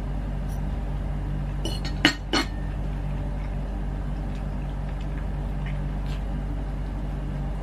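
Two quick clinks, a metal fork knocking against a plate, about two seconds in, over a steady low hum.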